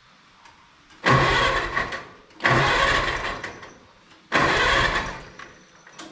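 International Cub Lo-Boy's four-cylinder engine being turned over by its electric starter in three cranking bursts of about a second each, without catching: the fuel had not been turned on.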